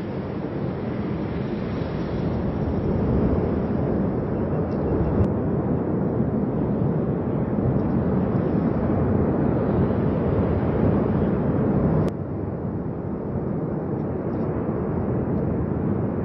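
Steady low roar of the erupting Cumbre Vieja volcano, its vent spattering lava fountains. The roar drops slightly and suddenly about twelve seconds in.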